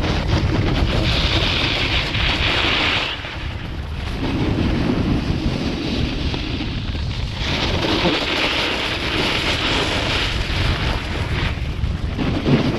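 Wind buffeting the microphone while a snowboard slides downhill, its edges scraping across the packed snow in two long hissing turns, from about a second in and again from about seven seconds in.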